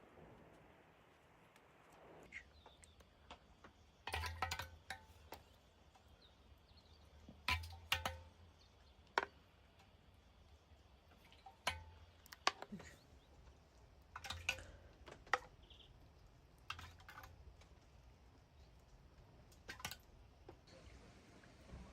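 Irregular short clicks and taps, some in quick clusters of two or three, each with a dull low thud beneath it.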